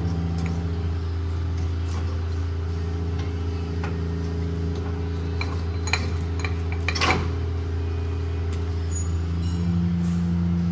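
Metal clinks and knocks of tools and suspension parts being fitted, loudest about six and seven seconds in, over a steady low hum.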